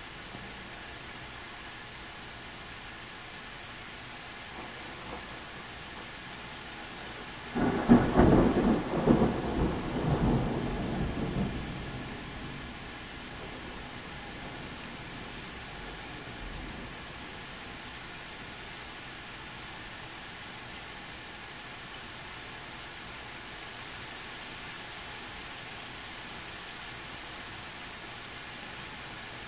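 Steady rain falling, with one loud clap of thunder about seven and a half seconds in that rumbles on for about four seconds before dying back into the rain.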